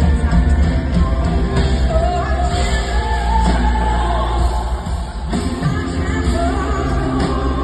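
A live band plays a song with heavy, steady bass while a woman sings over it.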